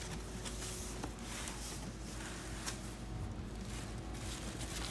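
A cardboard box being opened by hand: faint rustling and scraping of the flaps and packing, with a couple of light clicks, over a steady low hum.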